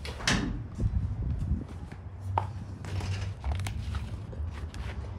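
Footsteps on an entrance mat with the rumble and knocks of a handheld camera being carried, and one sharp click about two and a half seconds in.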